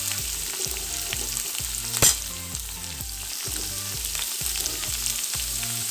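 Chopped onion, carrot and beans sizzling in hot oil in a kadai while a metal spatula stirs and scrapes them, with small scraping ticks and one sharp knock of the spatula against the pan about two seconds in.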